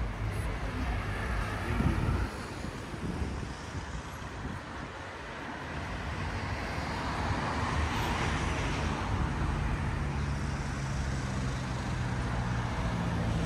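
Road traffic: cars passing along a street, with one vehicle swelling past about eight seconds in and a steady low engine hum through the second half.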